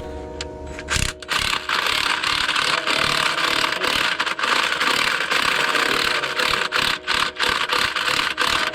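Power drill running under load on a broken screw in the harmonic balancer bolt hole, cutting in about a second in. It runs steadily, then stops and starts in short bursts near the end.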